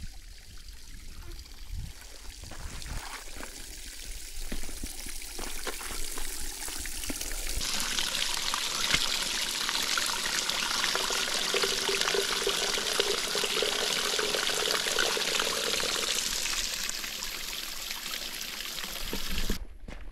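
Faint footsteps on the track at first, then from about eight seconds in a steady rush of running water that stops abruptly near the end.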